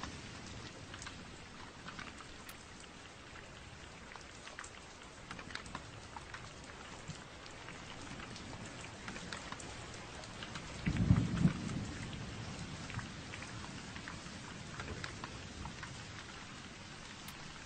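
Steady rain with scattered drops pattering on a surface, and a short low rumble of thunder about two-thirds of the way through.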